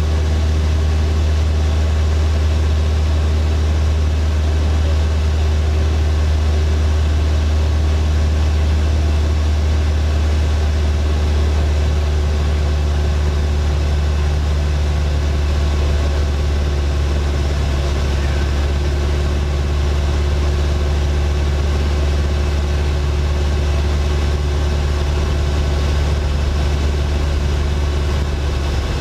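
Single-engine floatplane's piston engine and propeller droning steadily, heard from inside the cockpit. The note shifts slightly about twelve seconds in.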